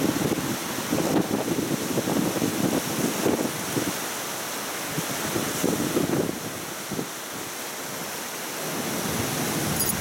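Rushing water of a high, fast-flowing river, a steady churning noise, with gusts of wind buffeting the microphone over the first several seconds.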